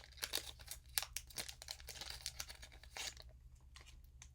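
Foil booster-pack wrapper of a Pokémon trading card pack crinkling and tearing as it is opened, with quick crackles for about three seconds, then quieter.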